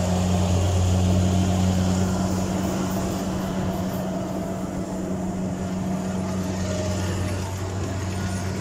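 Kubota rice combine harvester's diesel engine and machinery running at a steady working drone with a strong low hum while it cuts. It grows a little fainter as it pulls away.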